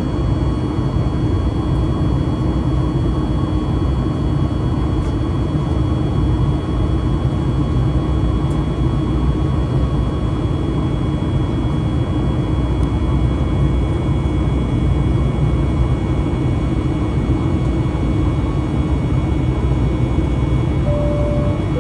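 Steady in-flight cabin roar of a Boeing 737 MAX 8 heard from a window seat beside its CFM LEAP-1B engine, with a deep rumble and a few steady whining tones over it. A short two-note chime, high then low, sounds near the end.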